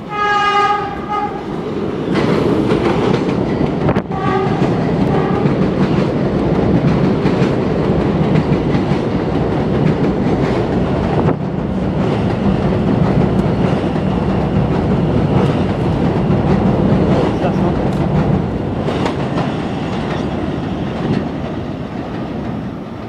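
New York City Subway R160B train sounds its horn, one blast at the start and another about four seconds in. It then runs through the station without stopping: a loud steady rumble with wheels clacking over the rail joints, fading near the end as it pulls away.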